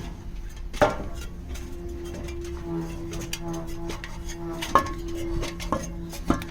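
Metal clanking: four sharp metallic knocks with a brief ring, over a steady low hum.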